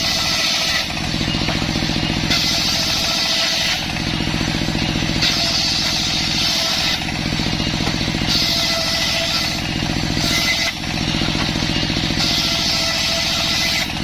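Engine-driven circular saw running steadily, its blade ripping waru wood into batten stock in repeated passes: a high cutting hiss of about one and a half seconds comes roughly every three seconds over the constant engine note.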